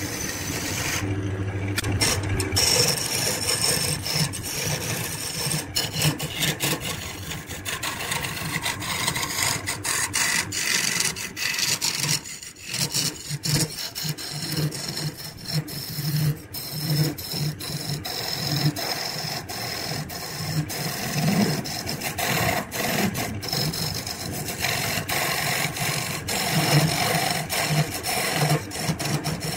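Wood lathe running with a steady motor hum while a tool scrapes against the spinning wood, the scraping rising and falling in loudness.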